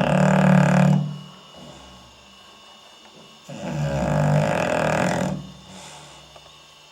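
English Bulldog snoring in its sleep, loud and low-pitched. One snore ends about a second in, and a second one starts about three and a half seconds in and lasts about two seconds before trailing off.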